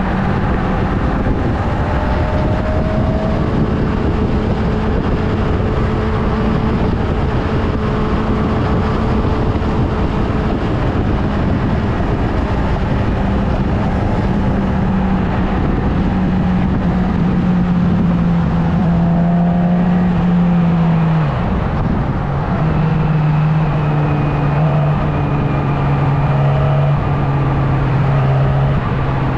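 Motorcycle engine running at a steady speed under a constant rush of road and air noise. About two-thirds of the way through, its pitch drops sharply and settles at a lower steady hum, as with a gear change or easing off.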